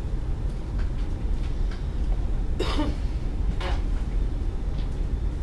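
A single cough about two and a half seconds in, followed a second later by a shorter, fainter sound, over a steady low rumble of room noise.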